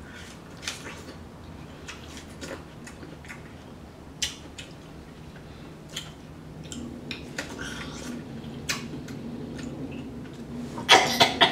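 A person eating cantaloupe slices: biting and chewing with scattered wet mouth clicks and smacks, a few close together near the end.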